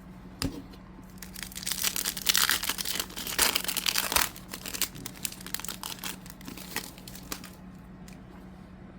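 A foil trading-card pack wrapper being torn open and crinkled for about three seconds, followed by scattered light clicks and rustles as the wrapper and cards are handled.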